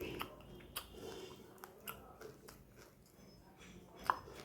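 A person eating: chewing and biting food, with scattered short clicks and crunches, the sharpest about four seconds in.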